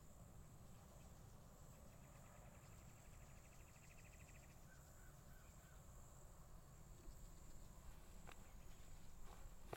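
Near silence with a faint, steady high insect whine, a rapid ticking trill from about two to four and a half seconds in, and soft footsteps on grass starting near the end.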